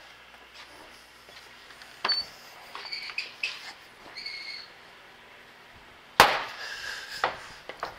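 A few sharp knocks and clinks, the loudest about six seconds in, with short high-pitched tones in between.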